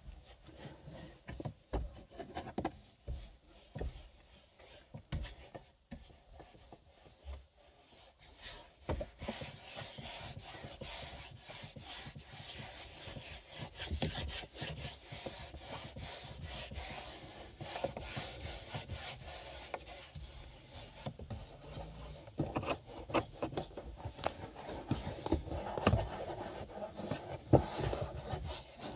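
A bare hand rubbing petroleum jelly into a car's plastic dashboard: scattered soft knocks at first, then a continuous rubbing of skin on the greasy plastic from about nine seconds in, with stronger strokes near the end.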